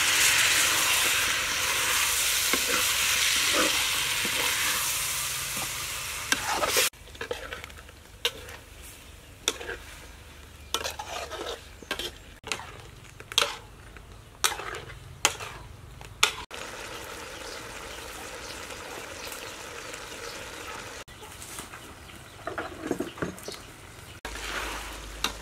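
Liquid poured into a hot steel wok of frying eels sizzles loudly for about seven seconds, then drops to a quieter simmer. Over the simmer a metal ladle stirs and scrapes against the wok in short, irregular strokes.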